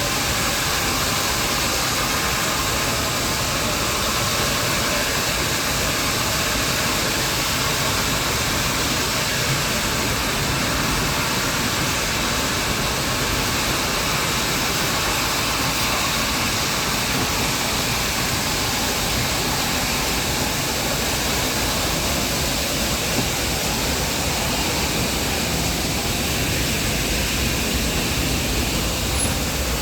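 Nilgiri Mountain Railway toy train in motion, heard from on board: a steady rushing ride noise that holds level throughout.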